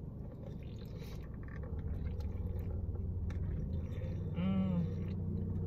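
Sipping and swallowing a bottled chocolate latte, with a short hummed 'mm' about four and a half seconds in, over a low steady hum.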